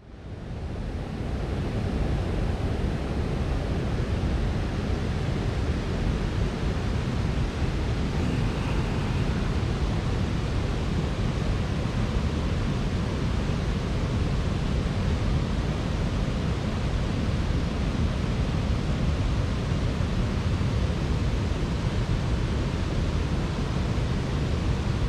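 Heavy rain falling steadily, a dense even hiss that fades in over the first second or two.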